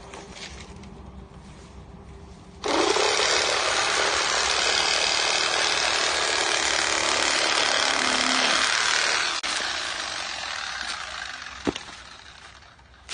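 Chainsaw cutting the old frond bases off a date palm trunk. It runs low at first, then about two and a half seconds in it opens up loud into the cut and stays there for about seven seconds before easing off, with a sharp knock near the end.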